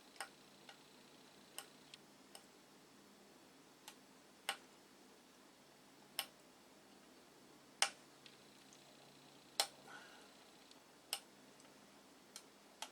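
Faint, sharp clicks of a metal tool tapping and prodding the pins of a 68000 processor socket during desoldering, about one every second or two at irregular intervals, as the pins are checked for looseness.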